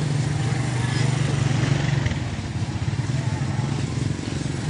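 Motorcycle engines running at low speed in slow street traffic, a steady low engine drone with an even wash of street noise.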